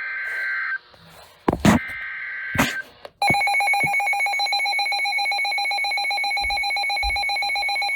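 Emergency Alert System alert starting: two short bursts of the warbling two-tone digital header data, then about three seconds in a loud electronic alert alarm, a steady rapidly pulsing beep.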